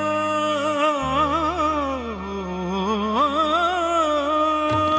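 A singer holding a long wordless melismatic line with vibrato, sliding down in pitch about two seconds in and back up, then holding a steady note, over a low sustained bass accompaniment.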